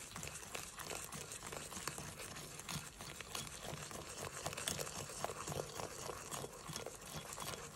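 Small wire hand whisk beating egg yolks, sugar and starch into a thick paste in a ceramic bowl: a fast, steady stream of wet scraping and clicking as the wire works the dough-like mix against the bowl.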